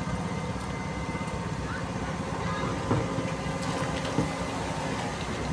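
Diesel engine of heavy machinery running steadily, with a few short knocks about three and four seconds in.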